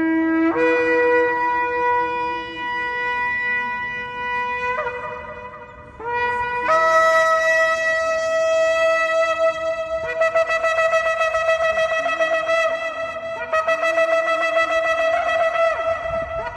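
Shofar (ram's horn) blown in long blasts. Each blast starts on a low note and jumps up to a higher held note. The first fades out about five seconds in, and the next starts about a second later and is held, wavering, to the end.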